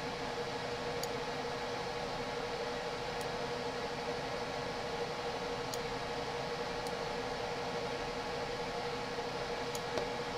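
Steady background hiss with a low hum from the recording, with about five faint clicks spread through it.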